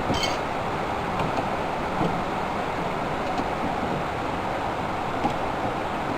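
Steady background rumble with a few faint clicks and taps from hands and tools working on the door handle and its linkage rod inside the car door.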